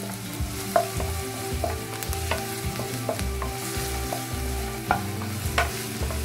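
Chopped red onion and minced garlic sizzling in hot oil in a nonstick pan, stirred with a wooden spatula that scrapes and taps against the pan at irregular moments.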